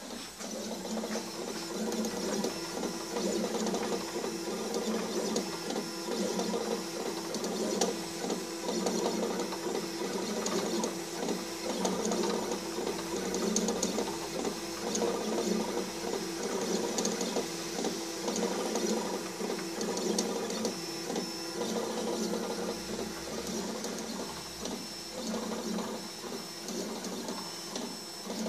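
Stepper motors of a homemade 3 W blue-diode laser engraver driving the laser head in quick back-and-forth raster passes while it engraves an image. The result is a choppy, rapidly stop-start whir with a thin high whine over it.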